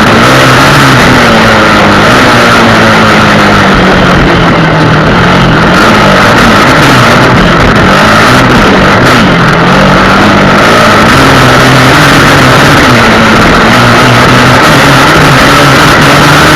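Honda XR 250 Tornado's single-cylinder four-stroke engine running under a loud, steady rush of noise, its pitch rising and falling repeatedly as the throttle changes.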